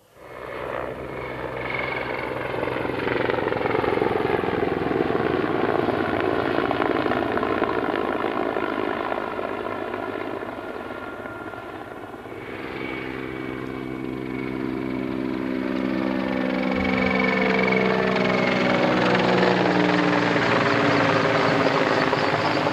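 Mi-24P attack helicopter flying in close, with the rotor and its twin turboshaft engines running. The sound comes in suddenly and grows, eases off near the middle, then builds to its loudest as the helicopter closes in. In the last few seconds its engine tones slide down in pitch as it passes.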